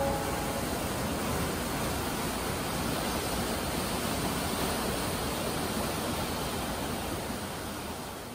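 Churning seawater of a ship's wake, a steady rushing sound that fades out near the end.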